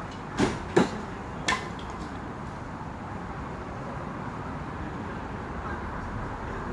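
Three sharp knocks within about a second and a half, the second the loudest, over a steady background hiss of noise.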